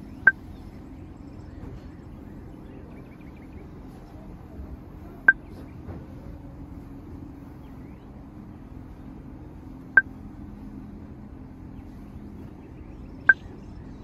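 Four short, sharp high-pitched chirps a few seconds apart, over a steady low hum.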